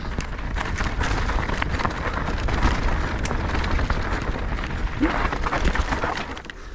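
Mountain bike riding fast over a rough dirt trail: a steady rushing noise with a heavy low rumble of wind on the microphone, and tyres on dirt and loose rock with many small clicks and rattles from the bike.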